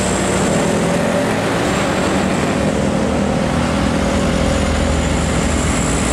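Car-carrier truck's diesel engine running steadily as the truck drives along the road, with tyre and road noise, a loud steady drone.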